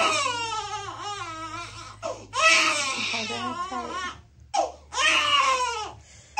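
Baby girl crying in three long sobbing wails, each falling in pitch, upset at having her ears pierced.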